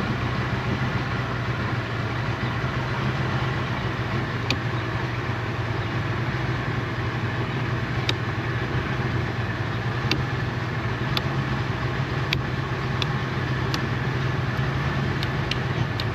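Outboard motor idling steadily, with a series of sharp clicks from about four seconds in that come closer together near the end.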